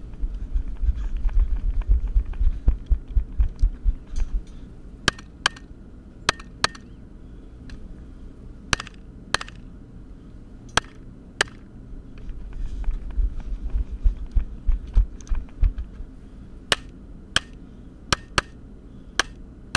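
Glock 34 9mm pistol shots fired mostly in quick pairs, more than a dozen sharp cracks spread across the stage. Heavy low thudding of the shooter moving between positions comes near the start and again a little past the middle, between strings of shots.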